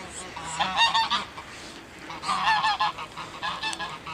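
Geese honking in a flock of park waterbirds being fed, in two bursts of repeated short calls, about a second in and again halfway through.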